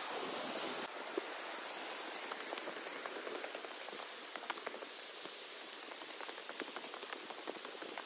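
Mountain stream flowing below the trail, a steady rushing hiss, with small scattered ticks throughout.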